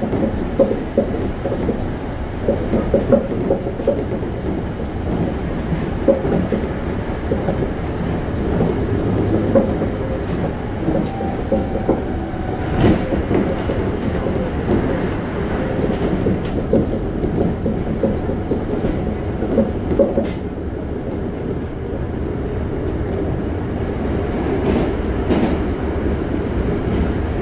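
Toei 5300 series commuter train running at speed, heard from inside the car: a steady rumble of wheels on rail with scattered clicks from rail joints. Near the end the noise settles into a steadier, more even rumble as the train runs into a tunnel.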